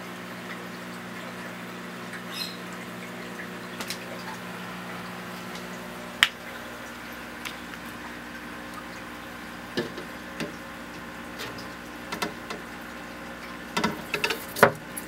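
Steady mechanical hum with a faint trickle of water, broken by scattered light clicks and taps. The sharpest click comes about six seconds in, and a cluster of taps comes near the end.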